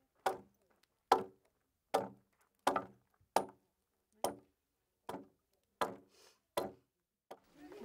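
A wooden pole being chopped by hand with a blade: about nine sharp, evenly paced blows, a little under a second apart, each with a short woody knock.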